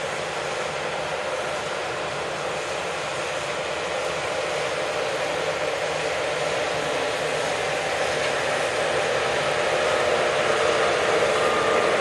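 Combine harvester running steadily as it cuts a cereal crop: a continuous mechanical drone with a steady hum, growing gradually louder as the machine comes closer.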